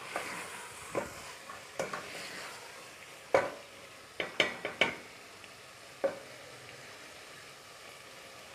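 Wooden spoon stirring green chickpeas and potato pieces in an aluminium pot, clacking and scraping against the pot's side in irregular strokes over a faint sizzle of the masala frying. The clacks stop about six seconds in, leaving only the sizzle.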